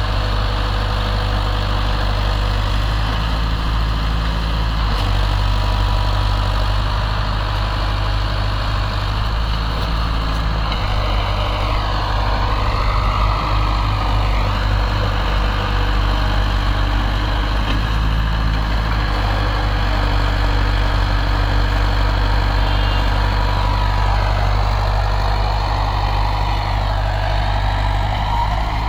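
Swaraj XM tractor's diesel engine running steadily, hauling a fully loaded sand trolley through soft sand.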